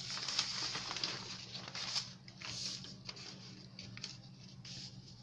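Paper rustling and sliding as cut-out paper pattern pieces are handled and moved over a large sheet of pattern paper, loudest in the first two seconds and then quieter, with a faint steady low hum underneath.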